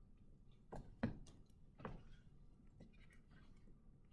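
A few faint clicks and taps from writing digital ink on a computer slide, the loudest about a second in, over quiet room tone.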